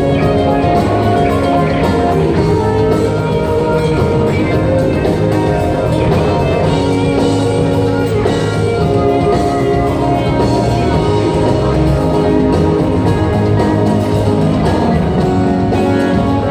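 Live rock band playing: electric guitars with acoustic guitar, keyboards and a drum kit, heard steadily throughout.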